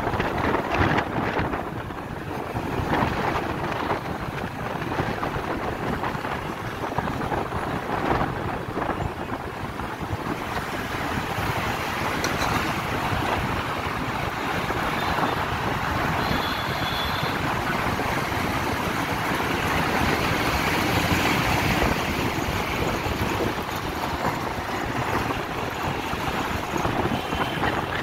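Wind rushing over the microphone of a moving motorbike, mixed with the steady noise of road traffic.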